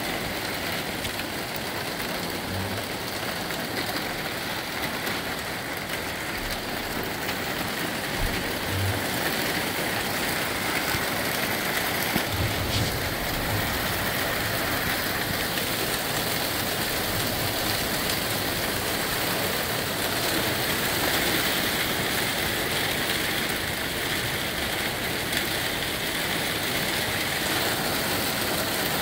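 Small hail and rain falling thickly in gusty outflow wind: a steady, dense hiss with a few low thumps.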